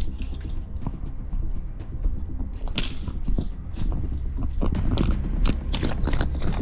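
Irregular crunching and crackling of footsteps through dry leaves and brush, over a steady low rumble on the microphone.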